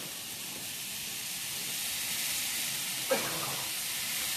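Steady hiss of heavy hurricane rain, growing slightly louder.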